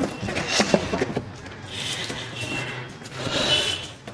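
Cardboard carton being opened and folded jeans handled inside it: a few sharp knocks from the cardboard flaps in the first second, then two stretches of rustling and scraping.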